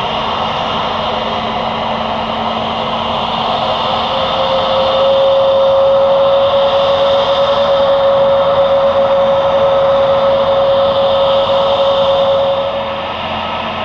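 Jet airliner engines running, a steady engine noise with a high whine. A strong steady tone comes in about four to five seconds in, the sound gets louder, and it drops back near the end.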